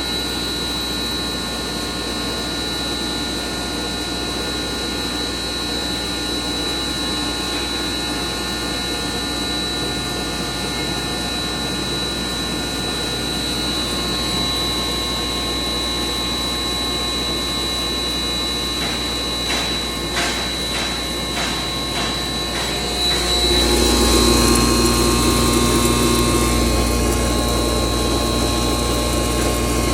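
Stoneless double-chamber atta chakki (flour grinder) running steadily, a motor hum with a thin high whine. A quick series of clicks comes about two-thirds of the way in; then, about 23 seconds in, the machine gets louder and rougher.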